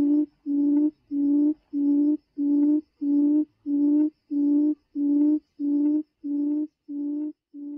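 A bird's low hooting call repeated about a dozen times at an even pace, each note held at one steady pitch; the hoots fade over the last couple of seconds.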